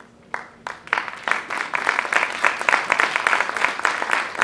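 Audience applauding: a couple of separate claps, then quickly a dense, steady round of clapping.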